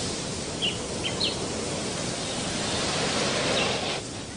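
Natural outdoor ambience: a steady rushing hiss with four short, high bird chirps scattered through it. The hiss drops away abruptly near the end.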